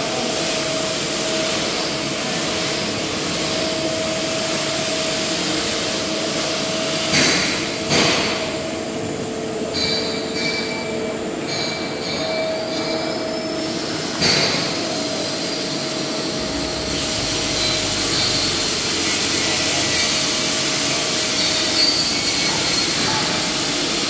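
Steady welding-shop noise: a continuous hiss with a faint hum, broken by three sharp knocks, two close together about a third of the way in and one a little past the middle.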